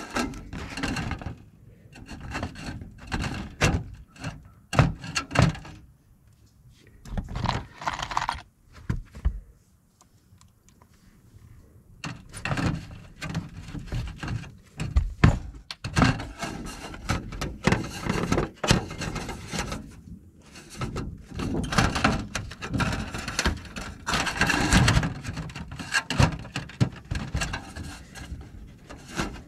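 Thin sheet-metal roof flashing being handled and pressed into place: irregular thunks, rubbing and scraping of the metal, with a quieter stretch about ten seconds in.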